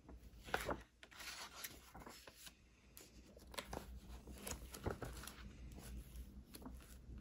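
Pages of an old paper book being turned by hand: a series of faint paper rustles and soft flaps.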